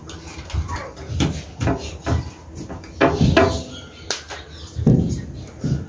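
Brief non-word voice sounds, with scattered knocks and taps at a table and a sharp hand clap about four seconds in.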